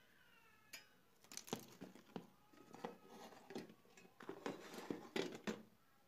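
Clicks, taps and light clatter of the dismantled Amstrad E-mailer Plus's parts being handled and set down on a bench: its metal shield plate, circuit board and rubber keypad. This goes on in a string of sharp knocks from about a second in until just before the end. A cat's meow is fading out at the very start.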